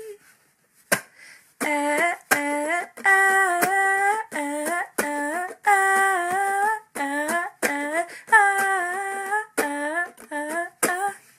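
A female voice singing a wordless melody in short held phrases, with sharp clicks between the phrases. It starts after a near-quiet second and a half.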